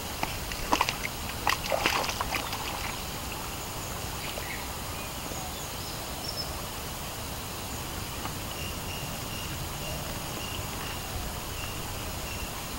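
Outdoor ambience with a steady hiss, and a scattered series of small clicks and knocks in the first three seconds.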